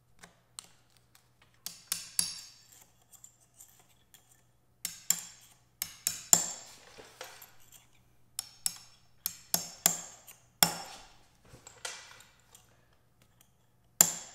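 A tight circlip being worked onto the splined shaft of a Porsche 996 manual transmission gear stack with circlip pliers: a dozen or so sharp metallic clicks and clinks with a bright ring, spread irregularly, as the steel clip and pliers snap and scrape on the shaft.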